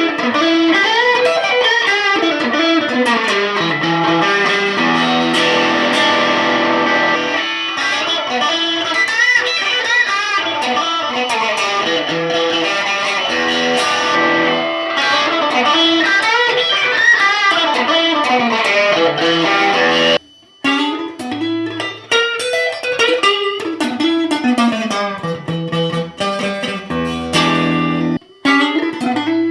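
Electric guitar played through a BOSS Katana 50 Mk II combo amp, picking single-note melodic lines with bends and slides. The sound drops out briefly twice, about twenty seconds in and again near the end.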